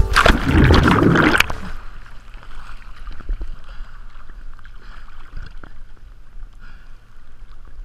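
Water sloshing and gurgling against a small boat's hull, with a low steady hum underneath. A loud rush of wind and water fills the first second and a half, then drops to a quieter lapping with faint knocks.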